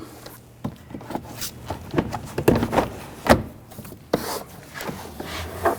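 Plastic door trim panel being lined up and fitted onto a pickup door: a series of separate knocks and clicks as it is handled and pressed into place.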